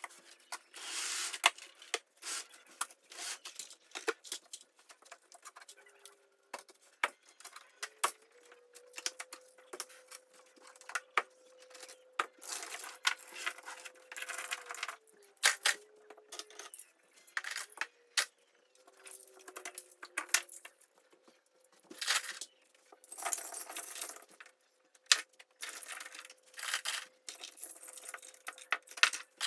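Small toy cars and HO scale model train cars clicking and clattering against each other and the layout as they are picked up, pushed together and set down by hand, with rustling between the knocks.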